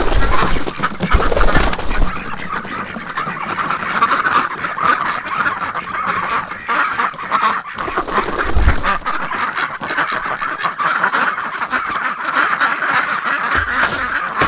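A flock of domestic ducks and geese quacking and honking without pause. A few low thumps sound in the first two seconds and again about eight and a half seconds in.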